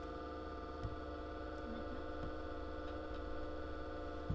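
Steady electrical hum with several unchanging tones, with a short click about a second in and another near the end as a computer mouse button is clicked.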